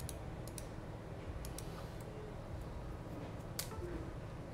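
Scattered light clicks, several in close pairs, and a sharper click about three and a half seconds in, over a low steady hum.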